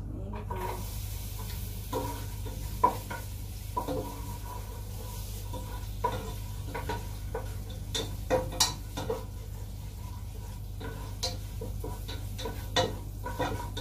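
Garlic and spring onion sautéing in hot oil in a pan, a steady sizzle, while a wooden spatula stirs and scrapes against the pan with irregular knocks and scrapes.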